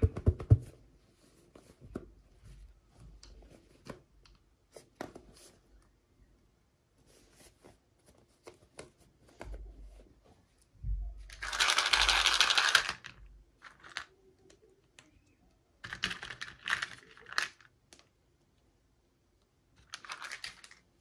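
Toy packaging being handled and opened: scattered small clicks and taps, a loud rustle of crinkling packaging lasting about two seconds around the middle, and two shorter rustles later on.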